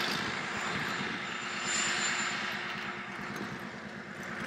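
White Pass & Yukon narrow-gauge diesel locomotive running as it approaches with a passenger train, a steady pulsing engine note under the wheel and rail noise.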